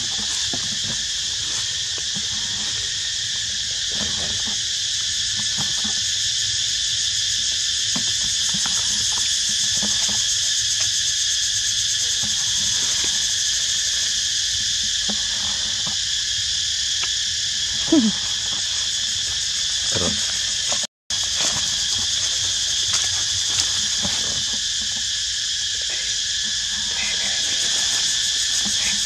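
Steady, loud insect chorus droning on several high pitches in a forest. Two brief falling squeaks cut through it about eighteen and twenty seconds in, and the sound drops out for an instant soon after.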